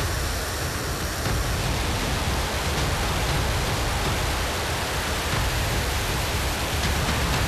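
Chŏllima-1 rocket engines at liftoff: a steady, deep rushing noise of rocket exhaust with a strong low rumble.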